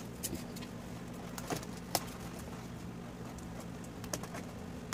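Scattered light clicks and taps of hands and scissors handling a taped cardboard shipping box, over a steady low hum.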